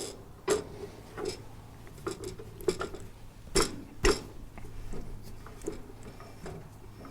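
Irregular metallic clunks and clicks, about half a dozen, from a Farmall 140's steering as the wheel is rocked back and forth to test its free play. This is play that is still there after the worn steering part was replaced.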